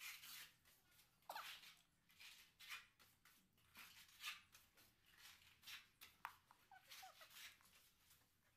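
Faint scraping of a steel putty blade spreading wall putty across a plastered wall, in irregular strokes about once a second, with a few brief high squeaks.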